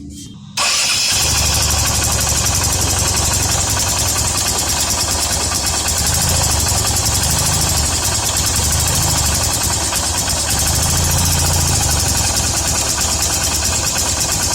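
Hero Honda CBZ Xtreme's single-cylinder four-stroke engine catching about half a second in and then running steadily, with a fast, even ticking from the valve train: the tappet noise of a loose valve with too much clearance.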